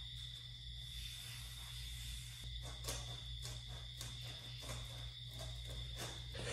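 Faint, irregular rustling, scraping and small clicks of stiff cardboard being handled and cut by hand, over a steady low hum and a faint, steady high-pitched whine.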